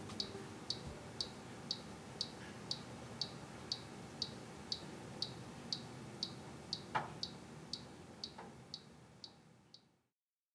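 BALMUDA steam toaster oven's mechanical timer dial ticking evenly, about twice a second, while the oven is running, over a faint low hum. One sharper click comes about two-thirds of the way through, and the sound fades out near the end.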